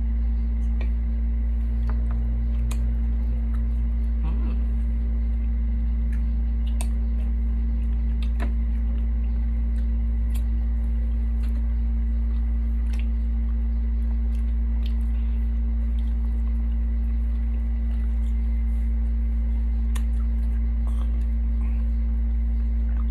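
Scattered small clicks and smacks of people eating with their hands from plates, over a loud, steady low hum.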